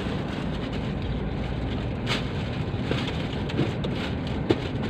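Steady rumbling noise inside a car cabin, with a few light clicks, the sharpest about two seconds in and near the end.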